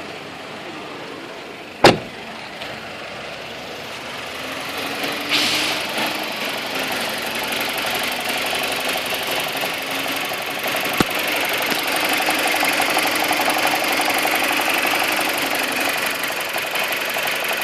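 BMW 318i's N42 four-cylinder engine idling with a rattle, at an idle speed the owner finds too low; he does not know the cause. A single sharp click comes about two seconds in, and the engine grows louder over the next ten seconds, then holds steady.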